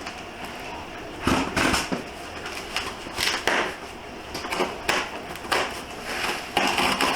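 A scissor blade slitting packing tape along a cardboard shipping box, with scraping and rustling of the cardboard in a string of irregular strokes.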